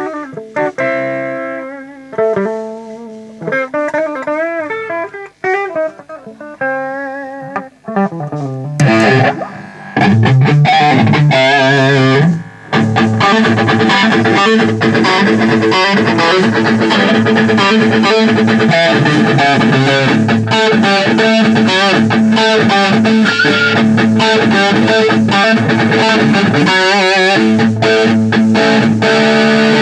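Electric guitar played through a Mesa/Boogie Throttle Box distortion pedal. For about the first eight seconds it plays single held notes with vibrato and short gaps between them. Then it breaks into loud, dense, continuous distorted playing.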